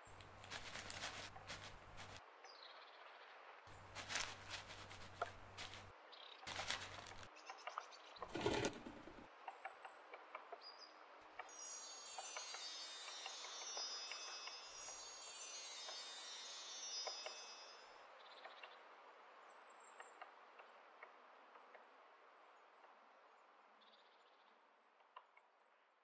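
Chimes ringing in a high cascading shimmer over a soft steady hiss, after a few short bursts of broader sound; the hiss fades out near the end.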